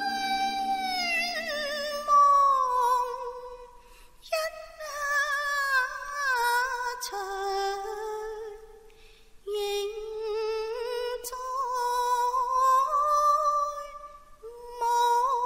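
A high female voice singing in Cantonese opera style: long held notes that waver and slide, the first phrase falling in pitch, in phrases broken by short gaps every few seconds.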